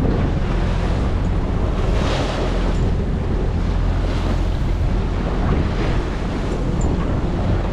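Wind buffeting the microphone over the rush of water along the hull of a sailing yacht under way, with the water swelling louder every couple of seconds.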